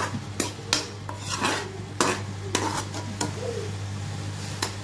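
A metal slotted spoon stirring wet vermicelli and potatoes in a metal kadai, scraping and knocking against the pan in irregular strokes.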